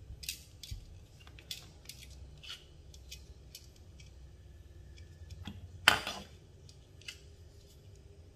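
Black plastic parts of a Nikon D810 camera battery grip handled and fitted together by hand: a scatter of small plastic clicks and taps, with one much louder, sharper click about six seconds in, over a faint steady low hum.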